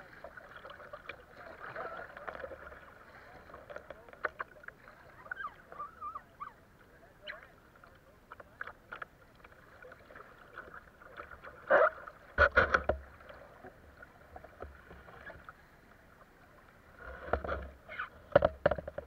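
Water splashing and sloshing against a kayak's hull as it is paddled through a shallow river riffle, with many short splashes and knocks; clusters of louder splashes come about twelve seconds in and again near the end.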